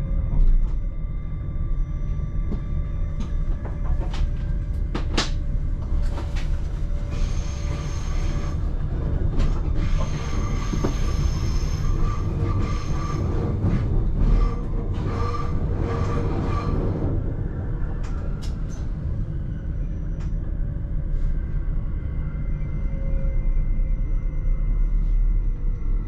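Electric train running, heard from inside the driver's cab: a steady low rumble with sharp clicks as the wheels cross rail joints and points. Between about 7 and 17 seconds in comes a high wheel squeal on the curving station tracks. Near the end a falling whine as the train slows alongside the platform.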